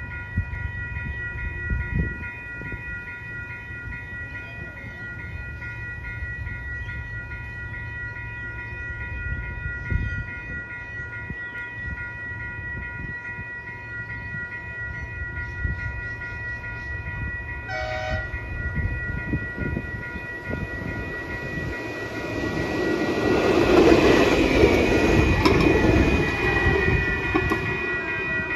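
Level crossing warning bells ringing steadily as a tram approaches. A short horn blast sounds about eighteen seconds in, then the tram's running noise grows loud as it passes over the crossing near the end, with a falling motor whine.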